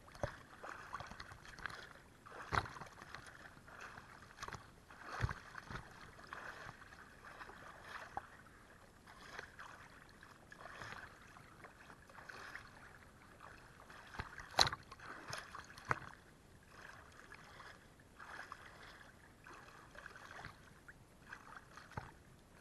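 Small lake waves sloshing and lapping against a waterproof action camera held at the water's surface, with a sharp splash against the housing every few seconds.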